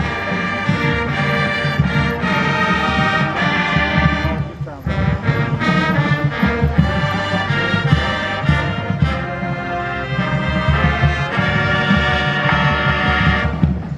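A high school band plays a brass tune live on trumpets, trombones, mellophones and a sousaphone over a steady drum beat, with a short break a little under five seconds in.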